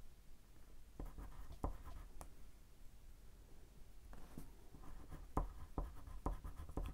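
Crayola crayon drawn over paper in short faint strokes, with small ticks and scratches that come more thickly in the second half.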